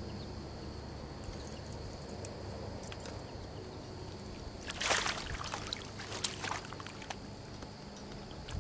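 Water splashing briefly about five seconds in as a landing net holding a large brown trout is lowered into a river, followed by a few smaller splashes and drips.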